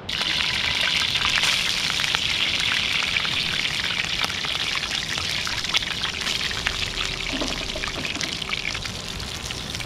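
Crumbed flathead fillets sizzling in hot oil in a frying pan on a portable gas stove: a dense crackle full of small pops. It starts suddenly as the fish goes into the oil and eases a little toward the end.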